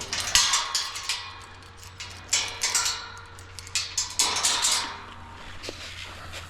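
Several short bursts of rustling and scraping, most of them in the first five seconds, over a low steady hum.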